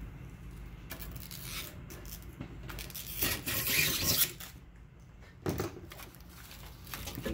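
Hands rubbing and pressing plastic film and screen mesh along an aluminium screen-printing frame: scraping, rustling noises, loudest about three to four seconds in, then a single dull knock.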